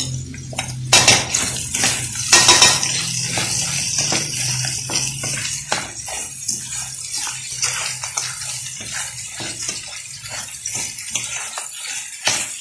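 Wooden spoon stirring a panful of crayfish in their shells with chopped vegetables in a metal pan: repeated scraping and clattering of shells against the pan, with louder bursts about one and two and a half seconds in. A low steady hum underneath stops near the end.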